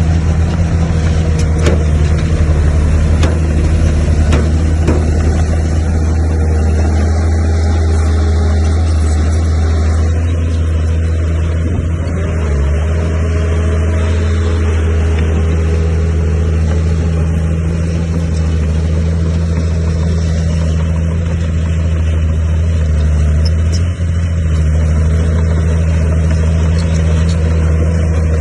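Heavy diesel engine of earthmoving machinery running steadily under load, with a constant low hum and some faint clatter in the first few seconds.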